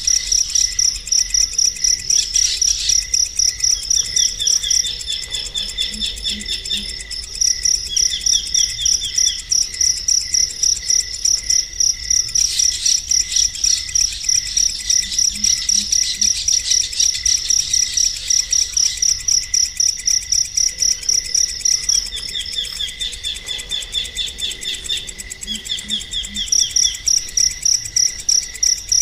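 Crickets chirping in a fast, even, continuous pulse, with short rapid bird trills now and then.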